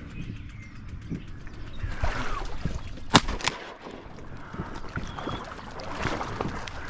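Tule reeds rustling and brushing close by, then a shotgun shot a little past three seconds in, followed a third of a second later by a second, weaker sharp crack.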